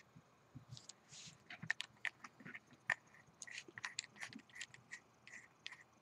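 Faint, irregular small metal clicks and scrapes as the SXK Corolla stainless tank is turned by hand onto the threads of a stainless tube mod in hybrid mode.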